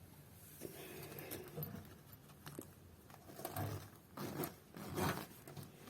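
The zipper on a quilted fabric washing-machine cover being worked open or shut, with the cloth rustling; a series of short scraping pulls, louder in the second half.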